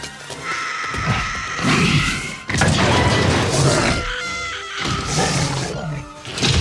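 Film soundtrack of music mixed with loud crashing sound effects, coming in several surges with a sudden hit about two and a half seconds in.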